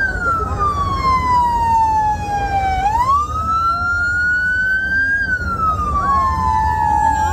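Wail siren of a fire department utility vehicle sounding as it moves slowly through a crowd. Its pitch falls for about three seconds, climbs for about two, then falls again.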